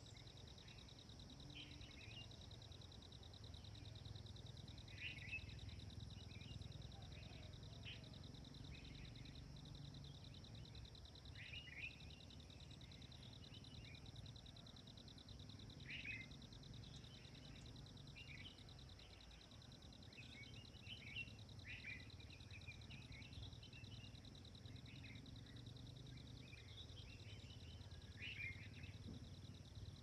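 Faint outdoor ambience. Small birds chirp briefly every second or two over a steady, high, rapidly pulsing insect trill, with a faint low rumble underneath.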